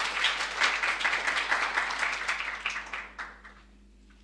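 Audience applauding at the end of a talk: a dense patter of many hands clapping that dies away about three and a half seconds in.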